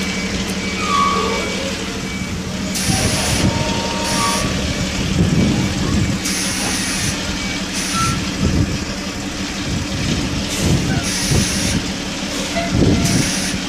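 Fire engine's diesel engine running steadily as it manoeuvres back into its station, with a reversing alarm and short bursts of high hiss recurring every second or two.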